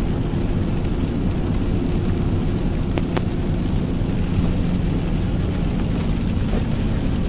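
Car driving on a rain-soaked road in heavy rain: steady engine hum and the wash of tyres and rain, with two faint clicks about three seconds in.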